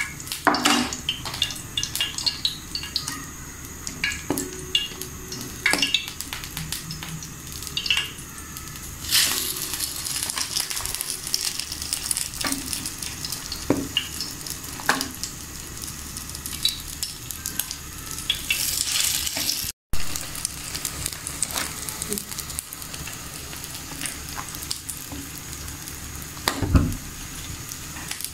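Egg-dipped bread slices sizzling as they fry in oil in a flat pan, with scattered clicks and knocks. The sizzle flares up louder about nine seconds in and again around eighteen seconds, and there is one heavier thump near the end.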